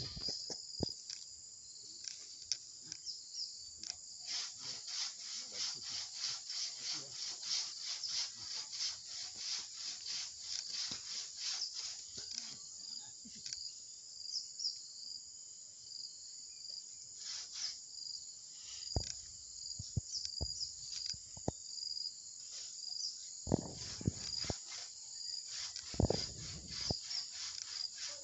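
A hand pruning saw cutting through a rambutan branch in even strokes, about two a second, for roughly the first half, then a few scattered knocks. A steady high chirring of insects runs underneath.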